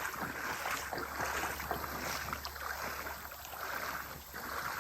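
Water splashing and sloshing in a run of repeated swishes, with small trickling ticks between them.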